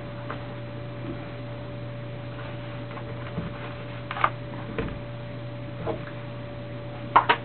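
Steady low electrical hum with a fainter higher steady tone above it, and a few small clicks and knocks in the second half, ending in a sharp double click near the end, as knives and leather sheaths are handled and set down.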